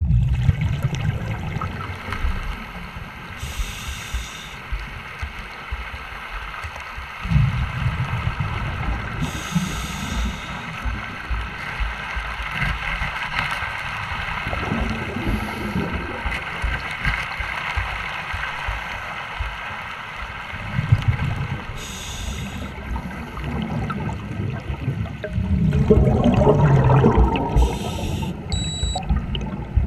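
Bubbling and gurgling heard underwater: a scuba diver's regulator breathing, with a short hiss about every six seconds. Near the end a louder, rougher bubbling starts, from the air-driven suction pipe (airlift) that vacuums silt out of the sunken boat.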